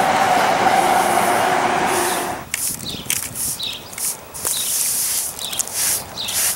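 Damp sponge wiping over a freshly placed rapid-set cement chimney cap, short swishing strokes about two a second, smoothing the setting cement. For the first two and a half seconds a steady rushing noise with a faint hum covers it, then cuts off.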